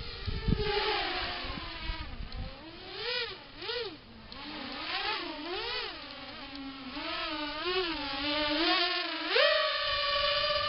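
RG210 mini FPV quadcopter's brushless motors and propellers whining in flight, the pitch swooping up and down again and again with the throttle, then jumping up sharply about nine seconds in and holding high. Wind rumbles on the microphone for the first couple of seconds.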